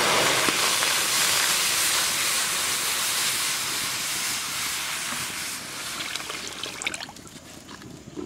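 Milk poured in a steady stream into a wide metal pan, making a loud, even rushing splash. The sound fades gradually as the pour eases off and ends with a few small drips after about seven seconds.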